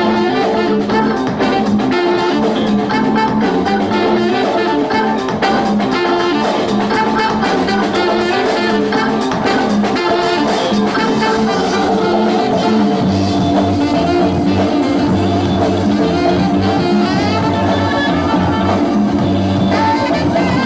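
Loud breakbeat-style music with brass horns over a drum kit. A heavier bass line comes in about two-thirds of the way through.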